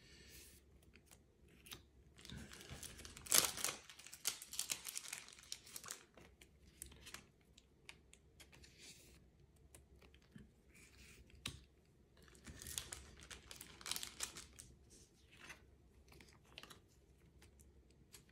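Yu-Gi-Oh trading cards handled and slid against each other and their plastic sleeves, with faint papery rustles, scrapes and crinkles at irregular moments; the loudest scrape comes about three and a half seconds in.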